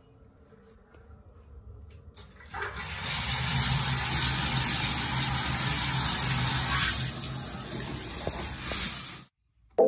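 Water running from a bathtub spout into the tub after the single-handle valve is turned on. It is a steady rush that starts about two and a half seconds in and cuts off suddenly near the end.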